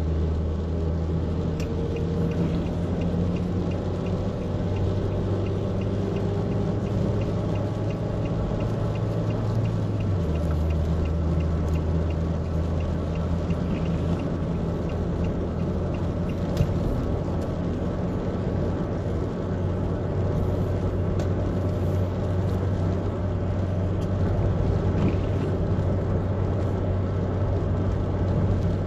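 Car engine and tyre rumble heard inside the cabin while driving on a wet road, the steady engine drone dropping lower about ten seconds in. Light regular ticking, about three a second, runs through the first half, and there is a single sharp knock a little past the middle.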